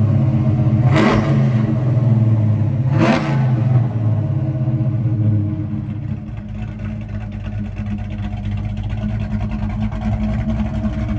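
1969 Plymouth GTX's 440 V8 heard at the dual exhaust tips, blipped up and back down about a second in and again about three seconds in. It then settles into a steady idle.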